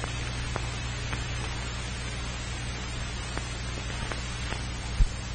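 Steady hiss and low mains hum of an old film soundtrack, with a few faint scattered clicks and a soft thump near the end.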